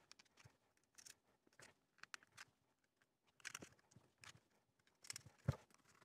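Near silence broken by scattered faint clicks and taps of small screws, nuts and the circuit board being handled, with one sharper click near the end.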